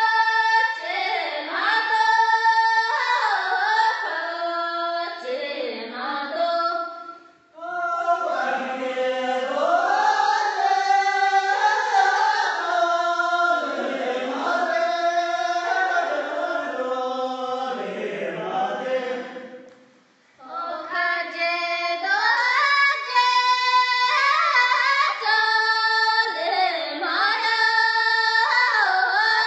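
High-pitched singing of a melody in held, sliding notes, with two short pauses about seven seconds in and again about twenty seconds in.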